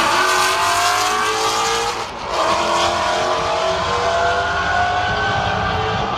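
Drag-racing car engine at full throttle down the strip, its pitch climbing, dropping briefly about two seconds in at a gear change, then climbing again.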